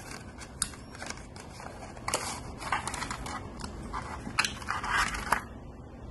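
A fitness bracelet's cardboard box and plastic insert tray being handled and opened: scraping and rustling with several sharp clicks, stopping about five seconds in.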